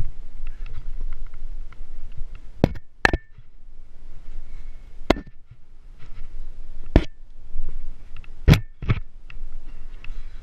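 Metal climbing gear on a trad rack clinking as the climber moves up the crack: six sharp clinks spread irregularly over several seconds, some with a brief ring, over a low rustling rumble of movement.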